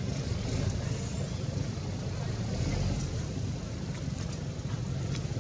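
Steady outdoor background noise: a low rumble under an even hiss, with a few faint ticks in the second half.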